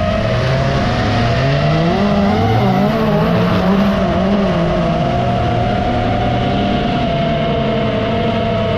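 Autorallycross race car engines revving, their pitch rising and falling through the gears, over a steady high whine that fits the FPV drone's motors.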